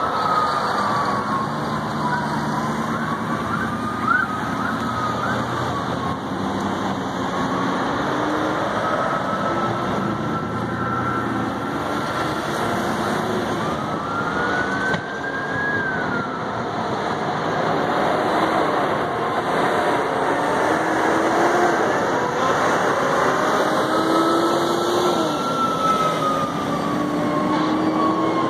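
Emergency-vehicle sirens wailing in slow rises and falls over steady road-traffic noise, with a brief knock about four seconds in.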